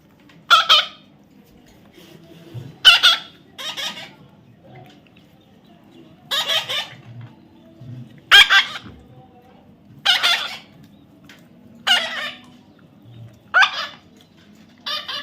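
A parrot squawking: short, harsh calls, nine of them, each about half a second long, repeated every one and a half to two seconds.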